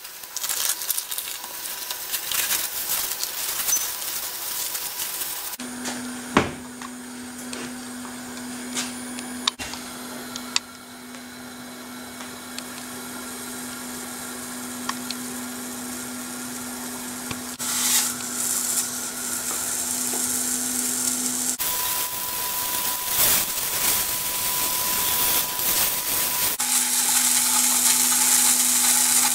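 Vacuum-pack plastic crinkling as a raw tuna loin is unwrapped, then a steady low mechanical hum under the tuna searing in a frying pan, the sizzle growing louder toward the end.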